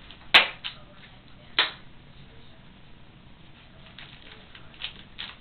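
Kittens scuffling and pouncing at a wand toy on a carpeted floor: a few sharp taps and knocks. The loudest comes about a third of a second in, another just after a second and a half, and fainter ones near the end.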